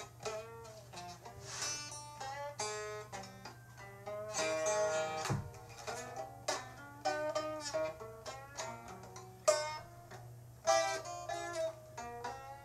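Music: a plucked string instrument playing a run of picked notes that each start sharply and fade, over a steady low hum.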